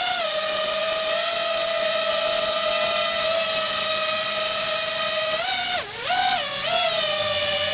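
FPV quadcopter's four brushless motors (iFlight XING 2207 1800kv) and props whining steadily at a hover, with a high hiss on top. About six seconds in the pitch dips sharply and climbs back as the throttle is chopped and punched.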